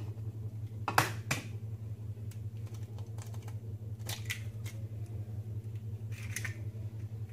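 Eggshells tapped against the rim of a ceramic bowl and cracked open: a series of sharp clicks and cracks, the loudest pair about a second in and more around four and six seconds in, over a steady low hum.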